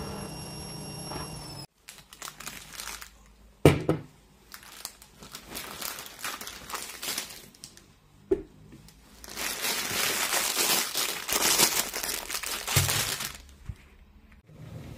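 Groceries being unpacked from a cloth tote bag: plastic packaging and fabric crinkling and rustling. There is a sharp knock about four seconds in and a lighter one near eight seconds as items are set on the table, and the loudest crinkling comes between about nine and thirteen seconds. A steady hum at the start cuts off abruptly before two seconds.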